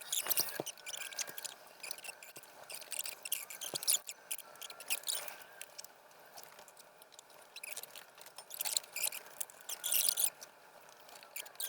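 Irregular scraping and rubbing with a few light knocks, from steel bolts and a bracket being handled and worked into place by hand.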